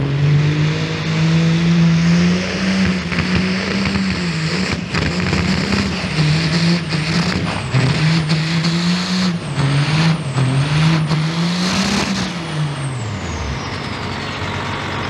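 Turbocharged Cummins diesel in a second-generation Dodge Ram pickup, run at full throttle while pulling a weighted sled. The revs rise and dip again and again as the tyres hook and slip. About twelve seconds in the engine revs fall away and a high turbo whistle winds down.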